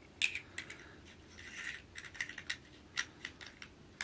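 Small metal parts of a rifle scope being handled: a string of light clicks and ticks as the turret caps are screwed back on by hand, with a short scrape about a second and a half in.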